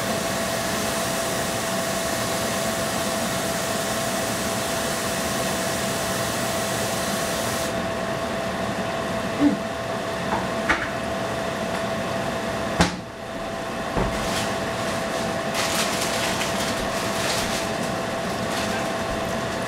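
Spring rolls frying in hot oil: a steady sizzling hiss over a constant fan-like hum. There are a few light knocks about halfway through, and the sizzle grows crackly toward the end.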